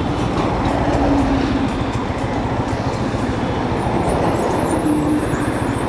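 A train passing close by, its rumble carrying a steady clack of wheels over rail joints about twice a second, over the noise of road traffic.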